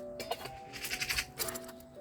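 Background music of slow, held notes that change in steps. About a second in, a short burst of noise with clicks sounds over it.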